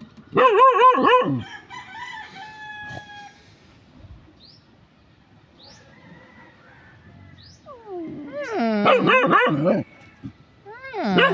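Dogs whining and yelping: a wavering, howl-like cry about half a second in, then a run of falling yelps and whines from about eight seconds in as a large dog tussles with a puppy, with another cry at the end. Faint short bird chirps in between.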